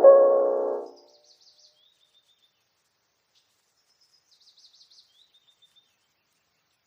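Piano music dying away in the first second, then a small songbird faintly singing the same short phrase twice: a quick twittering run followed by a few evenly repeated lower notes.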